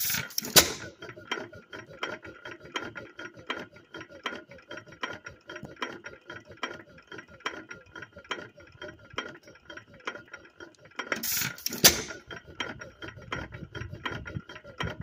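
6 hp Associated hit-and-miss engine running, its valve gear and governor clicking steadily while the flywheels coast. It fires with a loud bang near the start and again about eleven seconds in, then goes back to coasting.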